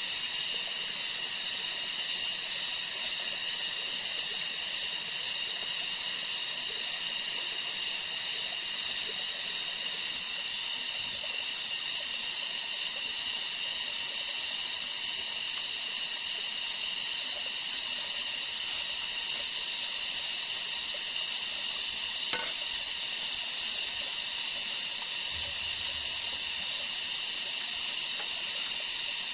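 Steady high-pitched drone of a rainforest insect chorus, with several shrill tones held throughout. A single sharp click about 22 seconds in.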